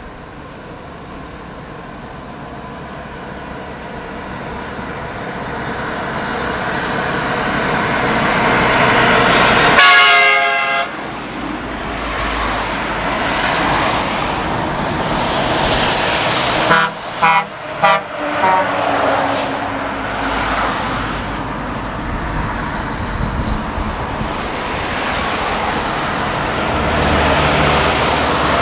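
Highway traffic passing, with a heavy vehicle's horn giving one long blast about ten seconds in, then a quick run of about four short toots around seventeen seconds. Traffic noise swells again near the end as more vehicles approach.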